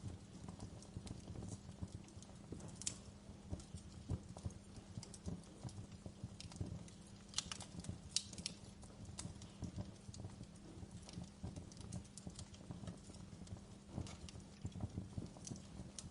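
Wood fire crackling: irregular sharp pops and snaps, some louder than others, over a faint steady low hum.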